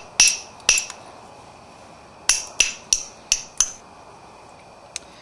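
Copper billet striking the edge of a Florida coral (silicified coral) point during flintknapping: sharp, ringing clicks in two quick runs, three near the start and five about two seconds later.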